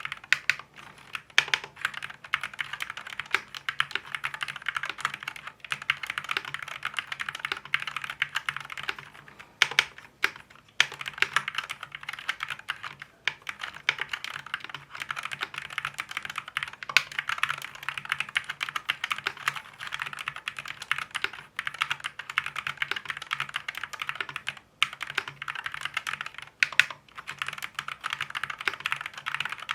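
Akko Fun 60 Pro keyboard with Akko Glare magnetic switches being typed on continuously and quickly: a dense run of light clacks with a few louder single strokes standing out and a couple of brief pauses.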